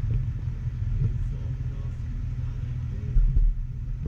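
Low, steady rumble of an idling vehicle engine, with a brief louder thump about three seconds in.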